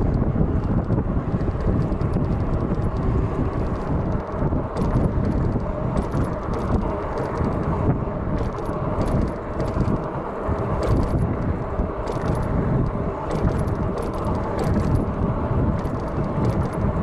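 Steady rumble of a Cyrusher Ranger fat-tyre e-bike being ridden along a road, with frequent light rattling clicks from the bike from about four seconds in.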